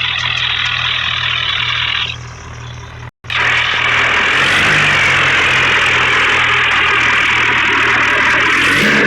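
Bulldozer engine running steadily, with a loud hiss over it; the sound cuts out abruptly for a moment about three seconds in, then resumes.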